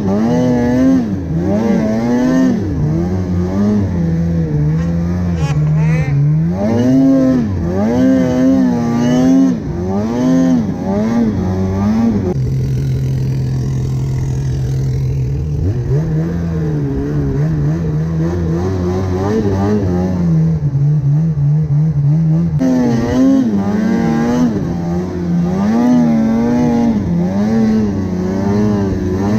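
Snowmobile engine revving up and down again and again under throttle in deep snow, settling to a steady lower note for a few seconds about halfway through.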